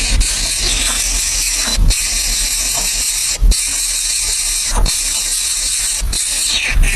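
A steady, loud hiss, with a few short low thumps scattered through it.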